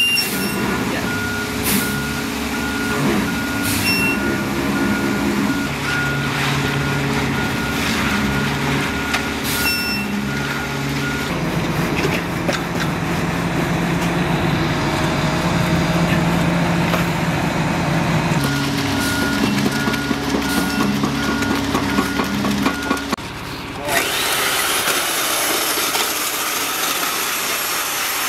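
Concrete mixer truck with its engine running and its reversing alarm beeping steadily. About three quarters of the way through, the beeping and the engine give way suddenly to a steady hiss.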